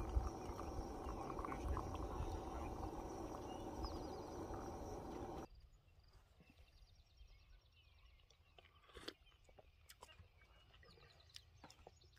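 Hot coffee pouring in a steady stream from a stainless steel percolator into an enamel camp mug, cutting off about five and a half seconds in. After that, only faint bird chirps and a few small clicks are left.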